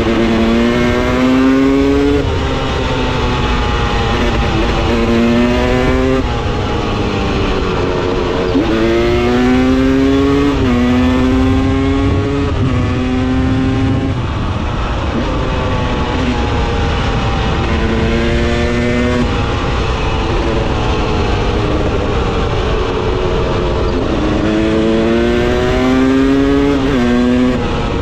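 Husqvarna TE 300 two-stroke enduro motorcycle engine under way, its pitch climbing as the throttle is opened and dropping sharply at each gear change or roll-off, over and over, with a low wind rumble.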